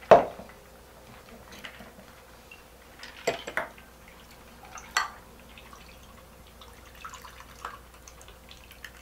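Stainless-steel cocktail shaker opened with a sharp clank, then a few light metal and glass clinks and, near the end, the Bloody Mary trickling from the shaker into a glass.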